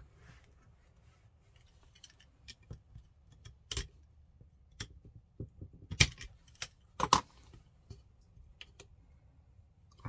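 Small hand tools, a pin punch and a screwdriver, clicking and tapping against the metal and plastic parts of an airsoft rifle's lower receiver as they work at the trigger assembly. The clicks come irregularly, a few sharper ones about four, six and seven seconds in.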